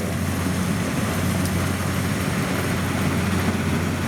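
Engine of rice-harvesting farm machinery running steadily, a constant low drone with no change in speed.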